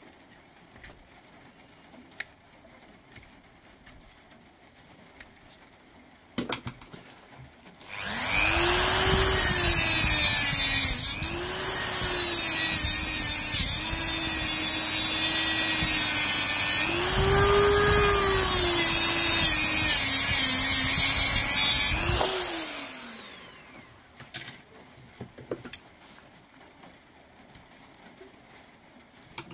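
A small high-speed power tool runs for about fourteen seconds, its pitch dipping a few times as it bears into the work, then winds down. It is cutting away the old welded strip connections to free the bad cells from a lithium-ion tool battery pack. A few handling clicks come just before it starts.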